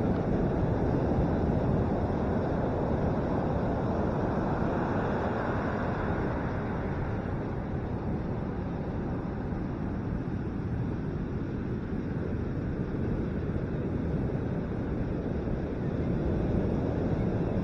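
Ocean surf breaking on a sandy beach, a steady roar, mixed with wind buffeting the microphone.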